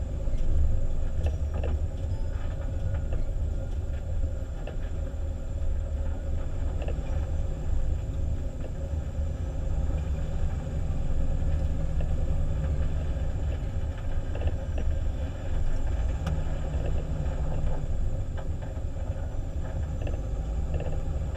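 Fire engine driving slowly along an icy, snow-covered road: a steady low rumble of engine and road noise, with no siren.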